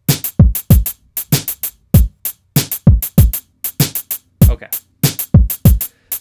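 Programmed drum-machine beat playing in a loop: synthetic kick, snare and closed hi-hat samples. The kick is a deep hit that drops in pitch each time.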